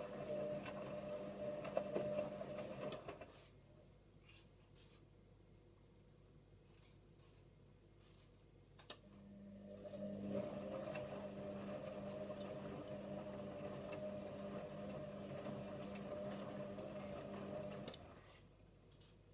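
Hotpoint WMA34 washing machine in its main wash: the drum motor hums steadily for about three seconds, stops for about six seconds, then starts again and runs for about eight seconds as the drum tumbles the laundry, stopping near the end.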